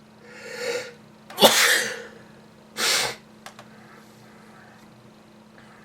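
A man sneezes once: a rising in-breath, then a loud sneeze about a second and a half in, followed by a shorter breathy burst about three seconds in. He has been sneezing for two months and puts it down to ordinary flu.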